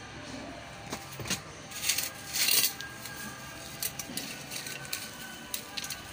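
Knocks, scrapes and clinks of a subwoofer driver being handled and set into a speaker box, in several short irregular bursts.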